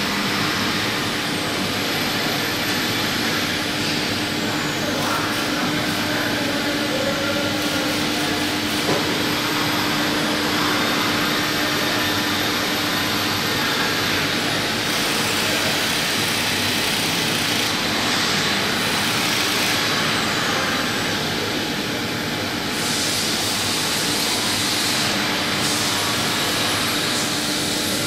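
Steady mechanical hum and noise of a running CNC machine, with one steady low tone running under it.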